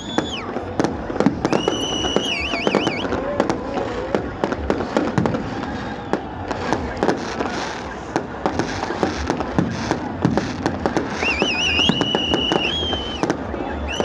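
New Year fireworks going off: a dense run of sharp bangs and crackles, with crowd voices. A high, wavering whistle sounds twice, about a second and a half in and again near the end.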